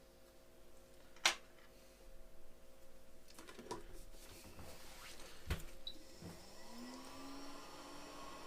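A few light clicks and taps of small tools being handled, then about two thirds of the way in an electric bench device switches on with a hum that rises in pitch and settles into a steady tone.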